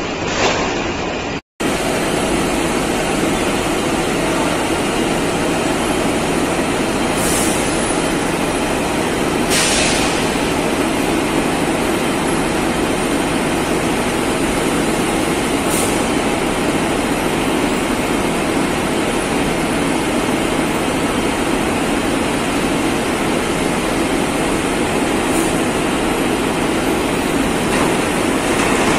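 Gypsum board production line running: multi-deck roller conveyors and their electric drive motors make a steady, dense mechanical rumble and hum. The sound cuts out briefly about a second and a half in.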